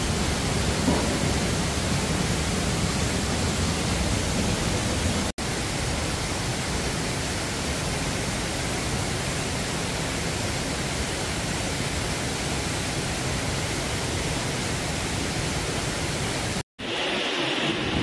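Steady rush of a waterfall's falling water, broken twice by brief dropouts in the recording. After the second dropout, near the end, the rush is quieter and thinner.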